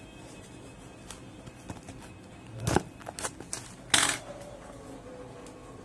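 A cardboard phone box being handled: a few short knocks and rubs about two and a half to four seconds in, the loudest a knock near four seconds with a brief fading tone after it, over a low hiss.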